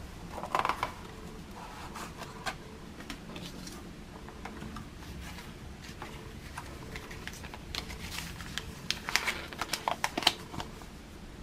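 Paper instruction leaflet and card packaging being handled and unfolded: crisp rustling and small paper snaps and clicks, loudest in a short burst about half a second in and a cluster around nine to ten seconds in.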